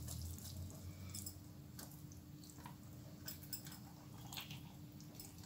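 Faint wet squishing with small scrapes and clicks as bare hands scoop seasoned rice stuffing from a steel plate and pack it into a raw chicken.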